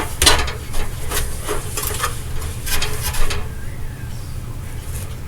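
Hands handling tape and a plastic smoke alarm: a string of short scratchy rustles and clicks, which stop about three and a half seconds in, leaving a low steady hum.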